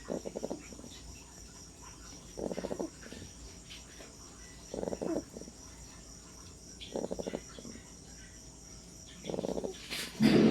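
A sleeping puppy snoring: five short, fluttering snores, each about half a second long, coming about every two and a half seconds.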